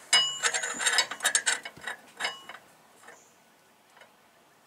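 Steel mower blade being handled and turned by hand against the mower deck, giving a quick series of metal clinks and taps with a short ringing over about the first two and a half seconds, then a few faint ticks.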